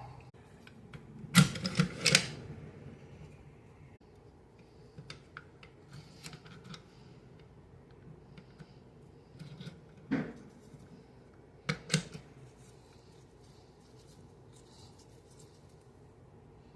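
Metal parts of a Micro Draco AK pistol clicking and clacking as it is reassembled by hand. A loud cluster of clacks comes near the start, then light scattered ticks, then two sharper single clacks about ten and twelve seconds in.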